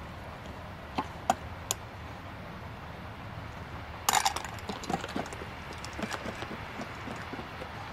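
A handful of food dropped into a stainless steel dog bowl about four seconds in, with a brief metallic clatter. It is followed by scattered small clinks and crunches as a dog eats from the bowl. Three sharp clicks come a second or two in.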